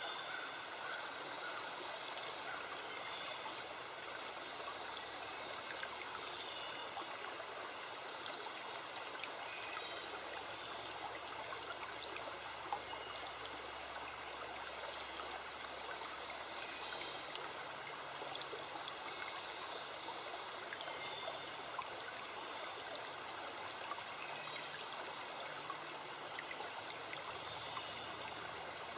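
A forest stream running steadily: an even, continuous rush of flowing water.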